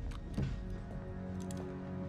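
Tense background music score of steady held notes, with a few faint clicks.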